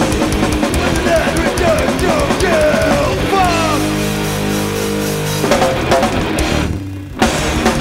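Live thrash metal: distorted electric guitars, bass and drums, with sliding guitar notes, then a held chord. The band cuts off briefly about seven seconds in and comes back with a loud hit.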